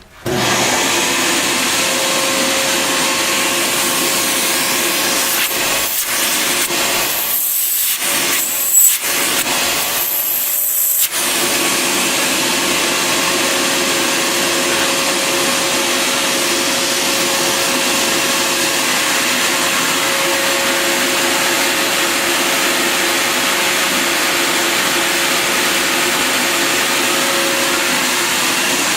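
Bissell Garage Pro wet/dry shop vac switched on and running: a loud, steady rush of air with a faint steady whine. Between about seven and eleven seconds the note changes several times, with a high whistle as the airflow shifts.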